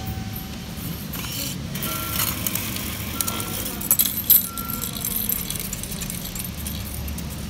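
Coins fed by hand into the coin slot of a JR East MV30 ticket machine, clinking and rattling into the mechanism, loudest about four seconds in, with a few short high beeps among them.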